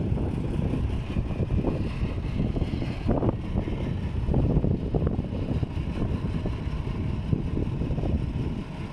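Truck crane's diesel engine running, a steady low rumble that surges unevenly.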